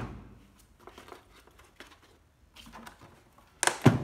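Handling noise as a cordless drill is handled: light clicks and rustling, then one loud knock about three and a half seconds in.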